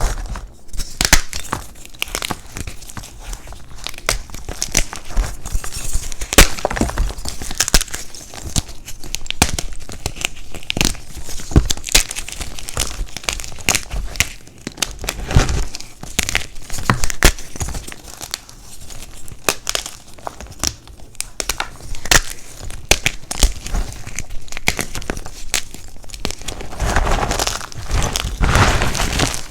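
Dyed gym chalk blocks being crushed by hand: a run of irregular crunches and sharp cracks, with denser crumbling near the end.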